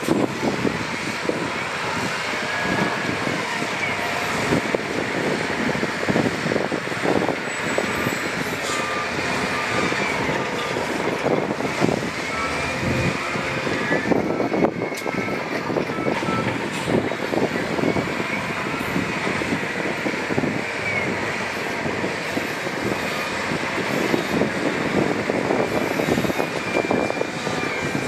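Heavy earthmoving machinery at work: diesel engines running steadily with frequent clanks and rattles, and short high beeps now and then.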